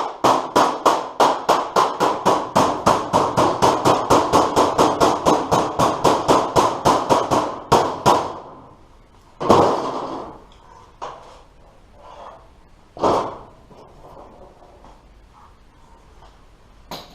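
A hammer striking steel sheet metal in a quick, even run of blows, about four or five a second, for some eight seconds while a folded edge of a truck door panel is worked over. Then two single heavier blows a few seconds apart, and a few light knocks.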